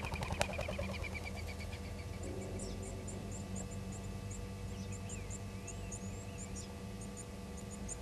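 Small wild birds calling: a quick run of chirps in the first second and a half, then thin, very high twittering notes, often in pairs, for the rest, over a steady low hum. A sharp click sounds just under half a second in.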